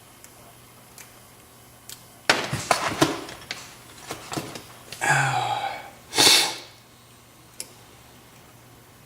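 A person sneezes: a short voiced intake, then one sharp explosive burst. Just before it come a few seconds of clattering knocks, like tools being handled.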